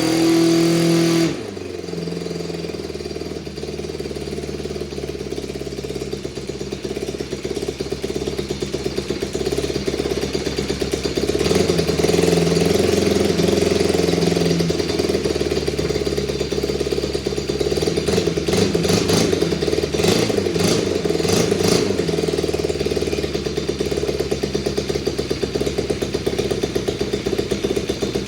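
Honda GX31 four-stroke engine, converted for an RC plane, running: at high speed at first, it drops abruptly to a lower speed about a second in, then picks up gradually and runs steadily at a higher speed for the rest.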